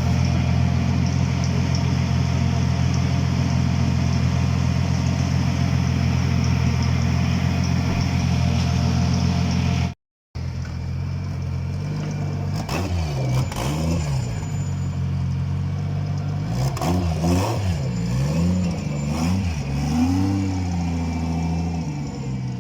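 Car engine idling steadily, then, after a short break, revved in a series of quick blips, its pitch rising and falling several times before settling back to idle near the end.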